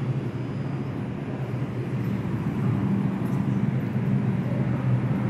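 New York City R142 subway train pulling out of the station: a steady running noise with a low hum.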